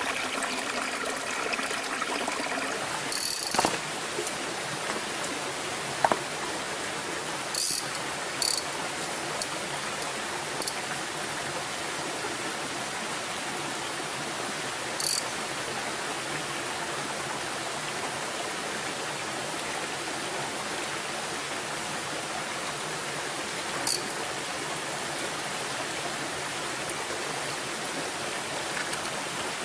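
Small mountain brook trout stream running over rocks, a steady rush of water, with a few brief high-pitched ticks now and then.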